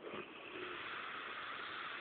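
A heavily drunk man snoring: one long, noisy breath starts just after the beginning and carries on throughout.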